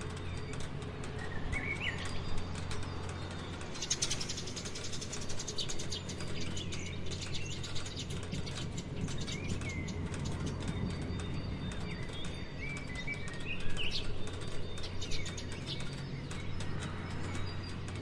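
Rain falling in many small close drips, with birds chirping now and then over it and a low steady hum underneath.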